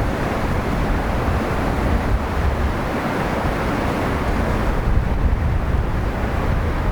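Sea surf washing steadily against the shore, with wind buffeting the microphone and adding a deep rumble.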